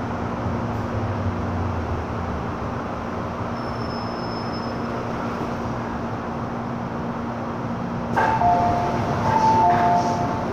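MTR M-Train metro car running, heard from inside the carriage: a steady rumble and hum of wheels and motors. About eight seconds in, a two-note electronic chime sounds twice, high then low, over the running noise.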